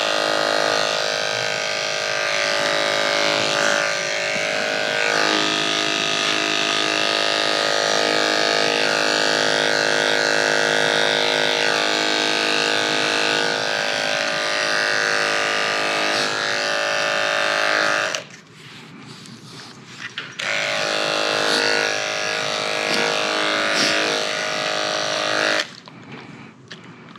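Andis two-speed electric dog clipper with a #10 blade running with a steady buzz as it shaves a dog's face. The buzz cuts out about two-thirds of the way through for two seconds, comes back, and stops again near the end.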